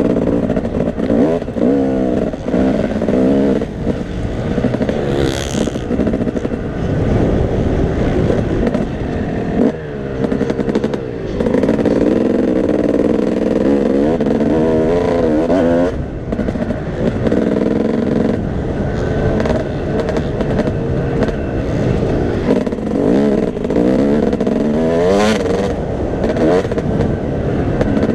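Motocross bike engine heard from the rider's helmet, revving up and down as the rider opens and shuts the throttle around the track, with brief drops in revs about ten and sixteen seconds in.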